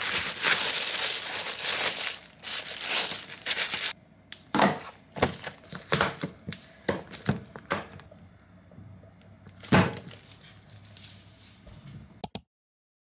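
Thin plastic bag crinkling as it is handled and wrapped for about four seconds. Then a series of separate sharp clicks and knocks from a plastic food container and its clip-lock lid, with the loudest knock near ten seconds. The sound cuts off suddenly near the end.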